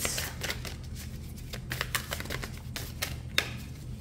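A deck of large tarot cards being shuffled by hand: irregular soft flicks and clicks of the cards sliding against each other, with one sharper slap about three and a half seconds in.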